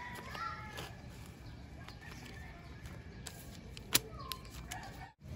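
Softened banana leaves rustling as they are handled and laid flat on a table, with a sharp click about four seconds in and a few short chirps in the background.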